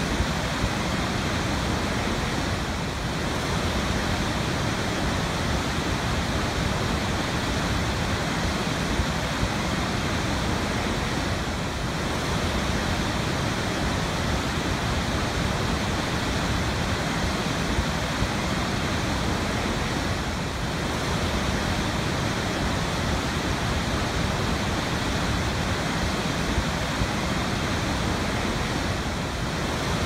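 A large, powerful waterfall: a steady, dense rush of falling water with no breaks.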